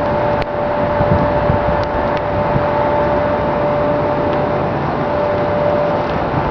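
Steady mechanical drone with two steady whining tones over an even rush of noise, unchanging throughout.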